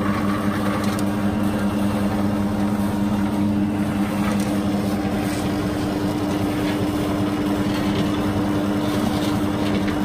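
Steelmaster SM-L20N lockseamer running with a steady hum, its single-phase 240-volt electric motor driving the forming rolls as a sheet-metal strip feeds through to be rolled into a double-seam profile.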